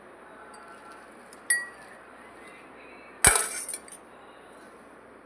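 Kitchen utensils clinking against a glass while a hot herbal decoction is strained and poured: a light ringing clink about one and a half seconds in, then a louder sharp clink a little after three seconds.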